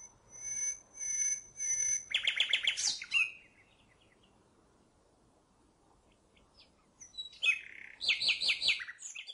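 Common nightingale singing: three slow repeated whistled notes, then a fast rattling trill. After a pause of about four seconds comes another phrase that ends in a rapid trill.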